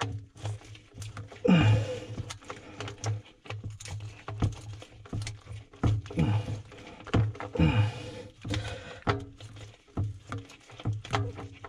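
Irregular small clicks and knocks as a band is tightened around the ejector pump's float switch. There are three short falling grunts, at about one and a half seconds, six seconds and near eight seconds.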